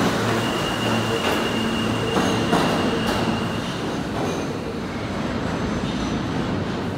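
R160 subway train departing the station, its last cars rolling past with a continuous rumble of wheels on rail and a steady high whine. The whine and hum stop about three and a half seconds in as the train clears the platform, and a rumble carries on from the tunnel.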